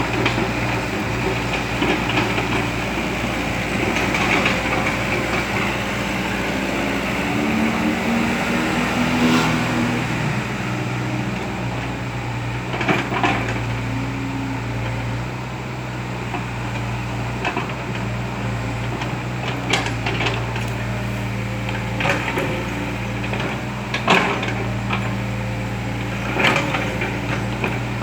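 Kobelco Yutani hydraulic excavator's diesel engine running steadily as it works, with occasional sharp knocks, a few in the second half.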